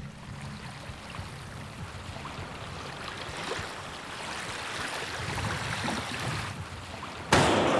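Small waves lapping on the lakeshore with wind in the background. Near the end comes a single loud shot from a scoped bolt-action rifle, its report carrying on after the crack.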